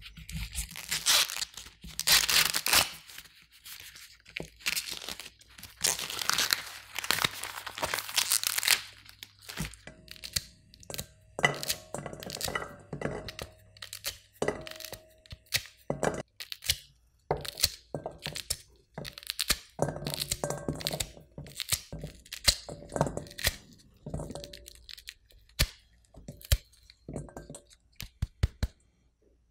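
Husk torn off an ear of corn in several long rips, then kernels pried off the cob by hand in many quick, sharp cracks, some falling with ticks into a stainless steel pot.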